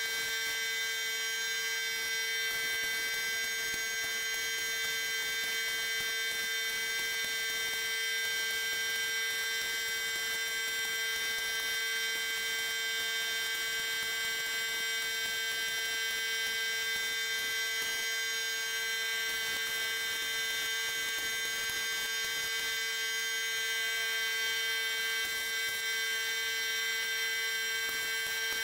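Steady electric motor hum with a set of high, unchanging whining tones, running the whole time the HVLP spray gun is laying on basecoat.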